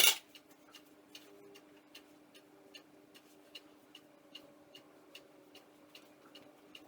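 Faint, even ticking, about two and a half ticks a second, over a faint steady hum.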